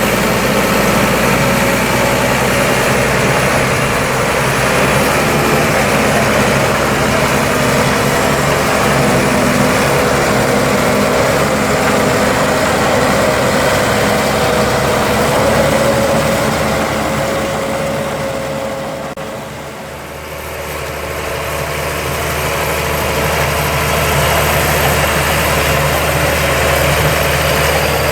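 Fendt tractor engine running steadily alongside potato-harvester machinery. The sound dips briefly about two-thirds of the way through, then returns to the same level.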